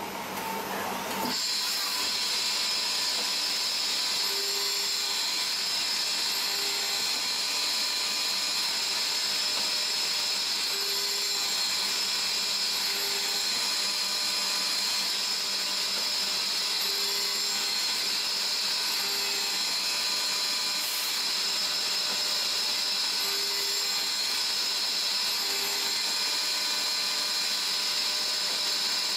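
CNC lathe machining a brass part: a steady, high-pitched whine and hiss of the cutting tool and spindle. The sound sets in about a second in and holds level.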